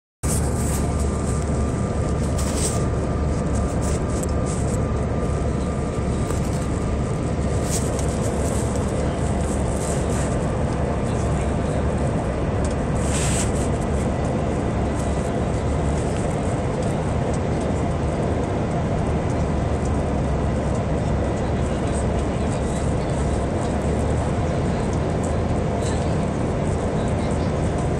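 Cabin noise of a Bombardier CRJ-1000 airliner on final approach: the steady rush of its rear-mounted turbofan engines and airflow, with a deep rumble and a faint high whine. A few brief clicks stand out over it.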